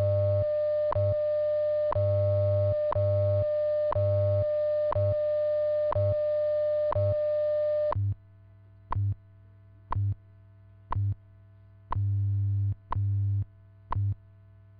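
WWV time-signal broadcast on radio: a steady 600 Hz tone with a short tick every second. The tone stops about eight seconds in, leaving the once-a-second ticks and the low 100 Hz time-code hum, which comes in pulses of different lengths.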